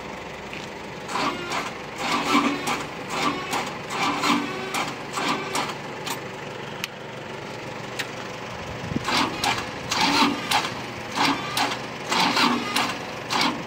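Cable reel machine's engine working with a rhythmic mechanical pulsing, about two to three beats a second, that lets up for a few seconds in the middle and then comes back.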